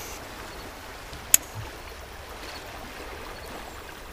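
Steady rush of fast, flood-high river water around a kayak, with one sharp knock about a second in.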